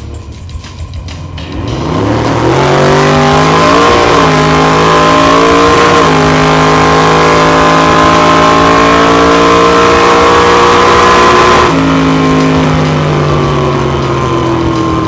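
A Chevrolet Impala drag car's V8 engine at full throttle on a drag-strip pass, heard from inside the cockpit. About a second and a half in the note climbs hard, steps down at two gear changes and holds high. Near the end it drops off as the throttle is lifted and the engine winds down.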